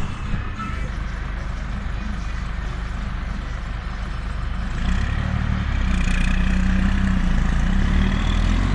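Tour coach's engine idling with a steady low hum, getting louder about halfway through.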